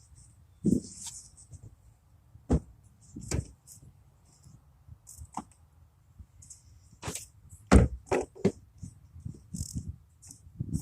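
Irregular knocks and clanks, a few sharp loud ones with a quick cluster near the end, over short faint high-pitched hissy chirps.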